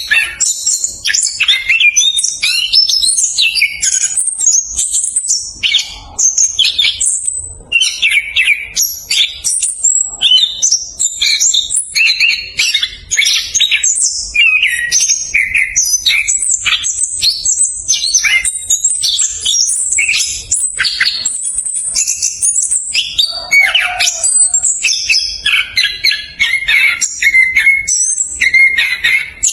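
Orange-headed thrush singing a fast, dense, unbroken rolling song of quick, varied high notes, with one short break about seven seconds in.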